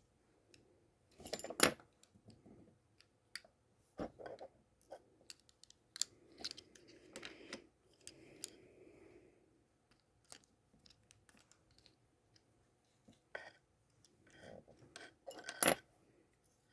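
Scattered small clicks, taps and light scraping from handling an eyeglass frame and tiny metal repair parts and tools during nose-pad replacement, with a sharper knock about a second and a half in and another near the end.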